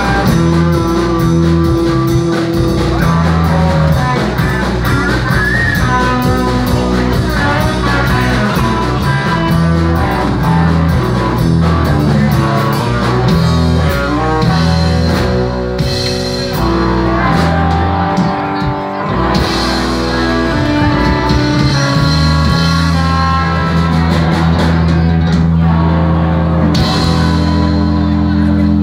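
Rock music played live by a three-piece band: electric guitar, bass guitar and drum kit. Over the last several seconds the band holds one long sustained chord.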